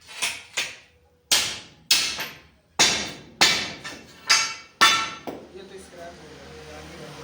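Hammer striking steel angle iron, about eight sharp blows with a metallic ring over the first five seconds, then the blows stop and a low steady noise remains.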